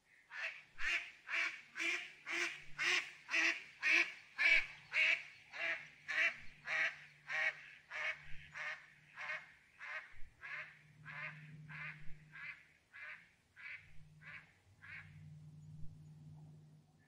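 Female mallard giving a long series of loud quacks, about two a second, that build over the first few seconds and then fade steadily until they stop near the end.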